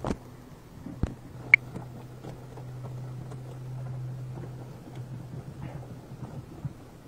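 Woven fish trap being handled aboard a small boat: a couple of knocks in the first second or so as it is set down, then light scratching and rustling of the wicker as its end is worked open, over a low steady hum.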